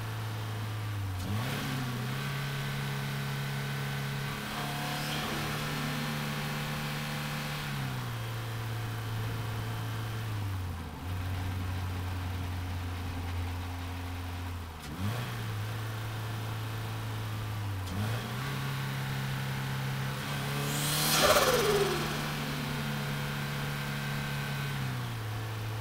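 Turbocharged Scion FR-S flat-four engine running at steady cruising revs, its pitch stepping up and down several times as the throttle changes. About 21 seconds in there is a brief louder rush with a falling pitch.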